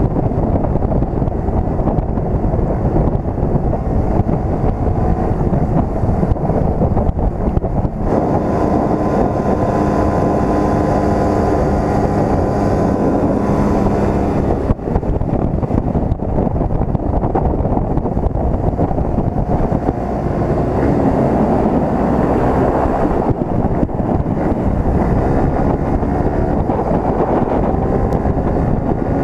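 Wind rushing over the camera microphone of a motorcycle riding at about 95 km/h, with the engine running underneath. From about eight to fourteen seconds in, and again around twenty to twenty-three seconds, a steady engine note stands out above the wind.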